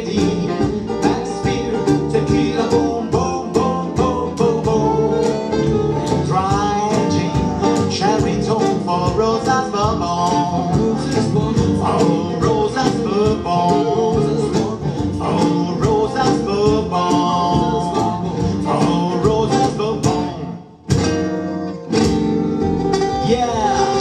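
Live acoustic band playing: two acoustic guitars strumming a fast, steady rhythm over upright double bass and cajón, with saxophone on the melody. About 21 seconds in, the band stops abruptly, hits a couple of short accents together, then plays on.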